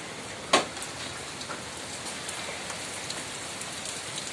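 Steady heavy rain falling, with scattered small ticks of drops. One sharp knock about half a second in.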